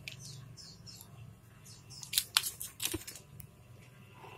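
Handling noises of a foil drink pouch and a cardboard food box: a few sharp crinkles and taps, bunched about two to three seconds in.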